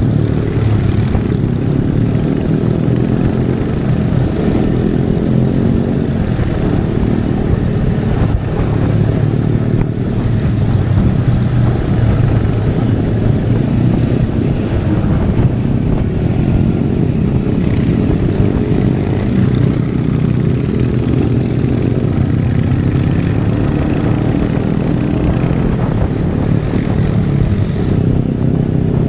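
Royal Enfield Hunter 350's single-cylinder 349 cc engine and exhaust running steadily under way.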